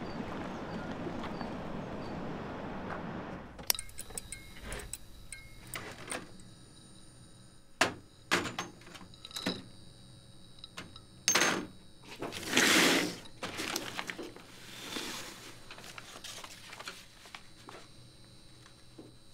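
Steady outdoor background rumble that cuts off about four seconds in, then scattered knocks and clinks of tins, a glass jar and tools handled on a workbench, with two short bursts of hiss about twelve seconds in.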